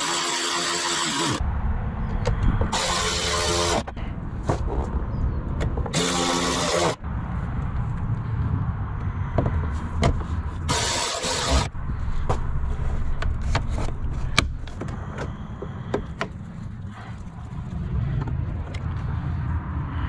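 Cordless electric ratchet running in four short bursts of about a second each, driving the 7mm door-panel screws home. Light clicks of handling come between the bursts, over a steady low rumble.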